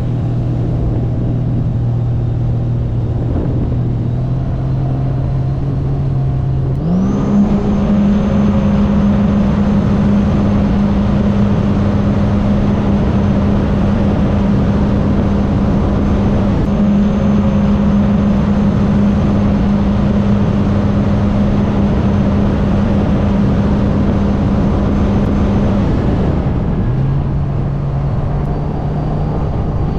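Sea-Doo RXP-X's supercharged Rotax three-cylinder engine on a wide-open-throttle speed run. The engine note climbs sharply about seven seconds in, holds high and steady for about twenty seconds, then drops back near the end, over a steady rush of wind and spray.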